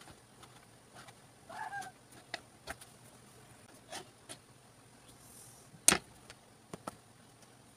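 Light clicks and knocks of a knife trimming bread crusts against a wooden chopping board, with one sharp, louder knock about six seconds in. A brief squeaky chirp comes near the two-second mark.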